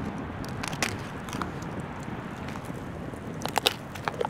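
Legs being twisted and broken off a cooked king crab: sharp cracks and snaps of shell, a couple about a second in and a quick cluster about three and a half seconds in, over steady wind noise on the microphone.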